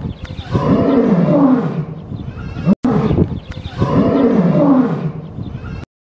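Lion roaring, the same roughly three-second roar heard twice in a row, its pitch rising and falling. It cuts off abruptly near the end.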